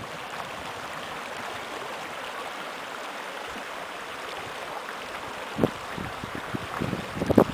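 Shallow mountain stream running over its rocky bed, a steady rush of water. A few brief gusts of wind knock on the microphone near the end.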